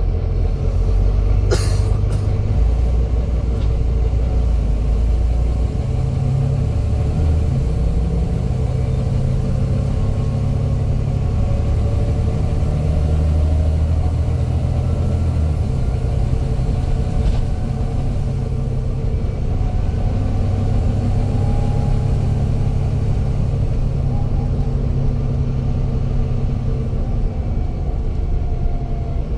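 Volvo B9 bus driving, heard from inside the passenger saloon: a deep engine rumble with a whine over it that slowly rises in pitch as the bus picks up speed. A sharp click about a second and a half in.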